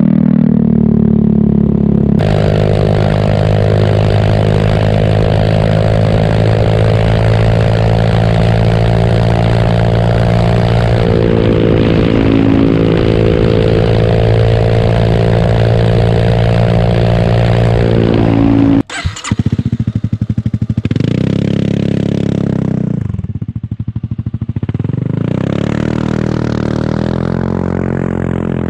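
Honda Forza 300 scooter's single-cylinder engine running steadily through its exhaust. About two-thirds of the way in, the sound breaks off abruptly, and the engine is then revved up and down several times.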